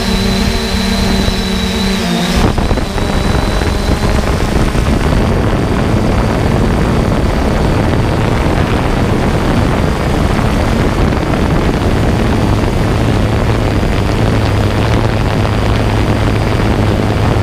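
Multirotor camera drone's propellers and motors running steadily, with a steady whine for the first couple of seconds that changes abruptly to a rougher, noisier whirr.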